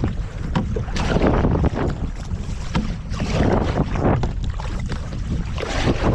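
Kayak paddles dipping and splashing in the water in a run of repeated strokes, over a steady low rumble of wind on the microphone.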